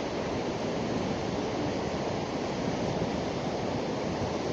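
Sea surf washing onto a sandy beach: a steady rushing noise.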